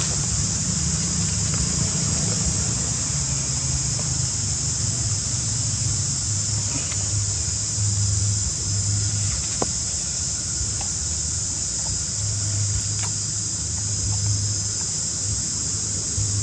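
Outdoor ambience: a steady high-pitched insect drone over a low motor-like hum that swells and fades, with a few faint clicks.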